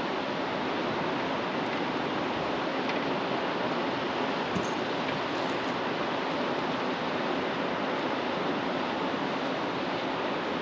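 Steady rush of flowing river water, even and unchanging, with one faint click about four and a half seconds in.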